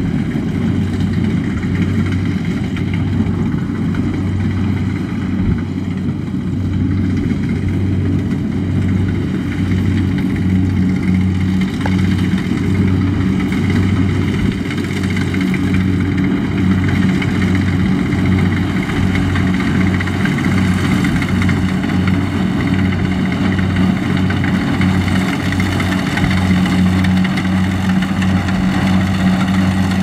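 Rice combine harvester engine running steadily under load, a constant low drone with a regular low throb.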